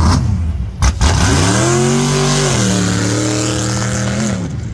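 Vintage 1940s coupe hot rod's engine accelerating away: it revs up, drops in pitch at a gear change about halfway through, pulls steadily again, then eases off near the end. A short sharp noise comes just under a second in.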